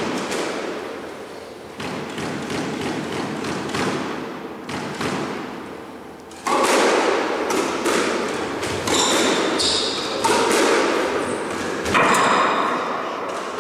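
Squash rally: repeated thuds of the ball off the racquets and court walls, with players' footsteps on the court floor, getting louder and busier about halfway through.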